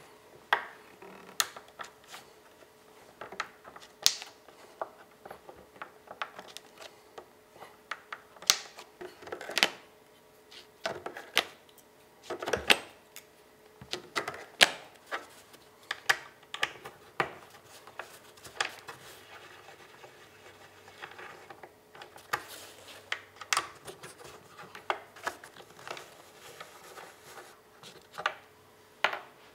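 Staples being pried out of canvas on a wooden stretcher bar with a metal staple lifter: irregular sharp clicks and snaps, about one or two a second, as the tool catches and pops each staple free.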